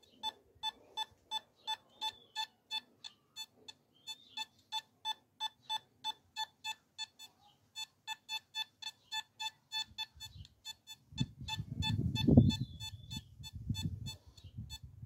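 Nokta Makro Simplex metal detector beeping repeatedly, about three short beeps a second with a few brief pauses, as it responds to a silver half crown coin in an air test. From about ten seconds in, a low rumbling noise joins the beeps and is loudest a little after twelve seconds.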